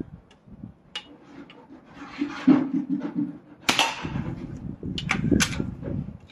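Weihrauch HW99S .177 break-barrel spring-piston air rifle firing once: a sharp crack a little over halfway through, with a few small handling clicks before and after.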